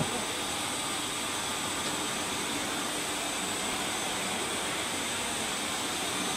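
Steady, even rushing noise of machinery running while a CNC uPVC profile bending machine slowly bends a profile, with no knocks or changes in pitch.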